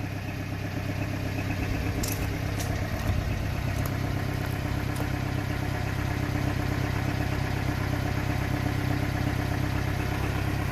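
Subaru Sambar mini truck engine idling steadily while still warming up from cold, with a few light ticks about two to five seconds in.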